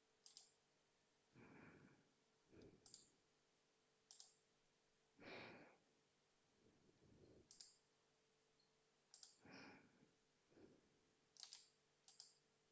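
Near silence, with faint, irregular computer mouse clicks and a few soft breaths.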